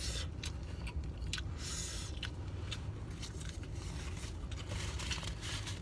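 Eating sounds: a utensil scraping and clicking in a takeout container of rice, with chewing, mostly in the first couple of seconds, over a low steady hum.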